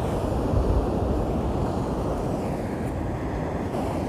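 Wind buffeting the microphone over the steady wash of sea waves breaking on the shore, with a stronger gust rumbling about half a second in.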